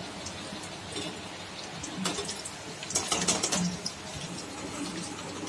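Fish vadai sizzling in hot oil in a metal kadai, while a metal spoon scrapes and clinks against the pan as they are lifted out. A short run of clatter and crackle about three seconds in is the loudest part.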